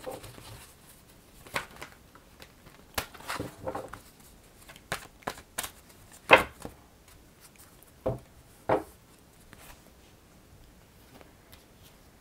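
A deck of oracle cards being shuffled and handled in the hands: irregular snaps and slaps of the cards, about a dozen in all, the loudest a little past halfway.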